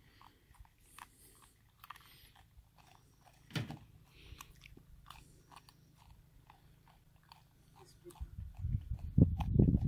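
A wallaby chewing dry noodle pieces: many small, quick crisp crunches. About a second before the end a much louder low rumbling noise sets in.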